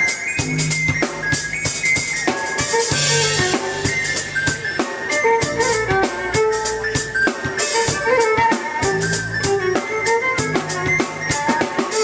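Live trio of drum kit, violin and keyboard playing an upbeat tune: busy kick, snare and rimshot hits under a held melodic line and a low bass line, with a cymbal wash about three seconds in.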